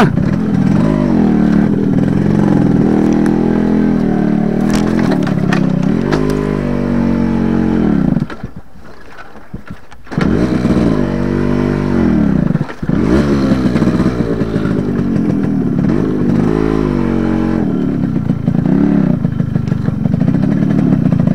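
Yamaha RX100 two-stroke single running under load over rough, rocky ground, its pitch rising and falling with the throttle. About eight seconds in the engine cuts out, and it is running again two seconds later. The rider puts the stalling down to the kick lever catching his leg while he fights to control the bike.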